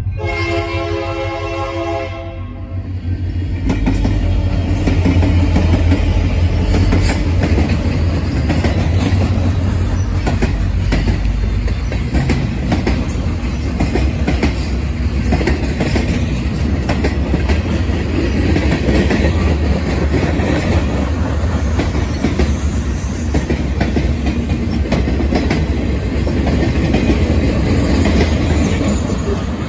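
Diesel locomotive horn sounds a chord for about two seconds. Then a Union Pacific manifest freight train rolls past with a steady low rumble, its boxcars and hoppers clacking over the rail joints.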